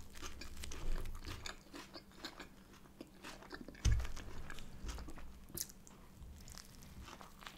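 Close-miked chewing and biting on a burger with a crisp-coated plant-based no-chicken patty and shredded lettuce, with small crunches and wet mouth sounds throughout. A low thump comes about four seconds in.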